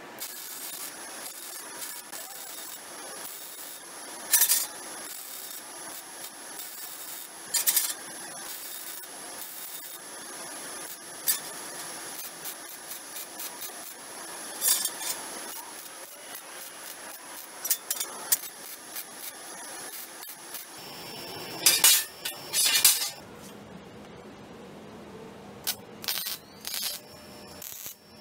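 Metalworking on a steel square-tube frame: a steady noisy hiss with about half a dozen sharp metal knocks, the two loudest close together about three-quarters of the way through.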